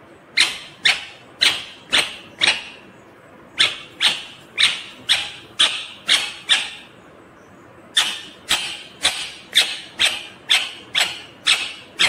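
Indian ringneck parakeet giving a run of short, high-pitched calls, about two a second, in three bouts with brief pauses between.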